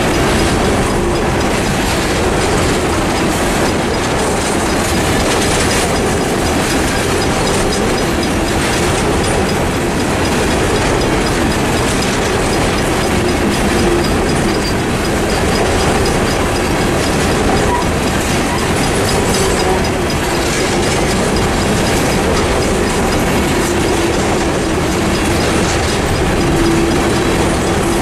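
Loaded coal hopper cars rolling past at a level crossing: steady clickety-clack of steel wheels over the rail joints, with faint wheel squeal now and then. Underneath it the crossing's RRS mechanical bell keeps ringing in an even rhythm, with a flat and rather rough tone.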